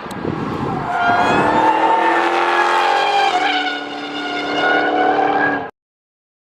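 Supercharged BMW M5 accelerating hard, its engine note and a high whine rising steadily in pitch, with a brief dip a little past halfway like a gear change. The sound cuts off abruptly near the end.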